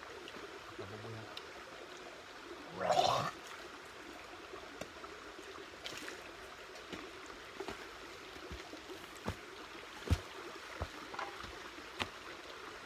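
A steady background rush with scattered sharp clicks and light knocks, about four of them, as camp cookware is handled around metal bowls and pots. One short, louder sound comes about three seconds in.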